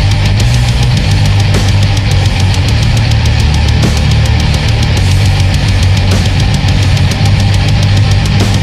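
Old-school Swedish-style death metal: heavily distorted HM2-toned guitars, bass and fast, driving drums playing at a loud, even level.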